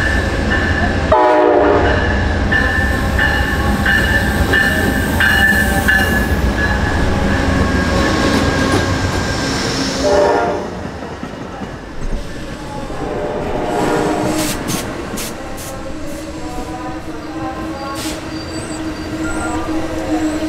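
Amtrak P42DC diesel locomotive arriving at a station platform: engine rumbling with its bell ringing in steady strokes and a short horn sound about a second in. After it passes, the passenger cars roll by more quietly with wheel clicks and a steady squeal as the train slows.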